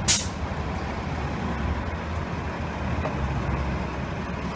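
Steady low rumble of street traffic, with one sharp knock right at the start.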